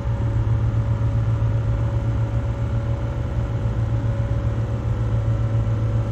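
A motor yacht's twin diesel engines running steadily at an 8-knot cruise: a constant low drone with a steady higher hum above it.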